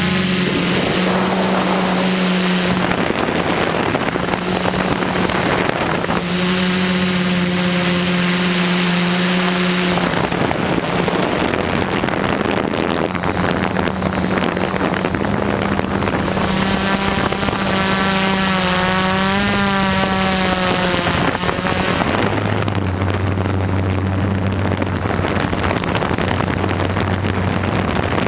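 Quadcopter's electric motors and propellers humming steadily, the pitch wavering up and down as the drone adjusts its flight, with wind noise on the on-board microphone. A second, lower hum comes in about two-thirds of the way through.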